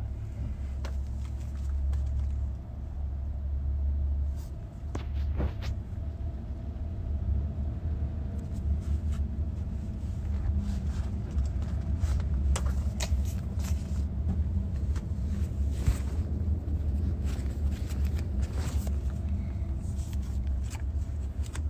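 Low, steady rumble of a car's interior heard from the back seat through a phone's microphone, in heavy traffic, with scattered clicks and rustles of the phone being handled.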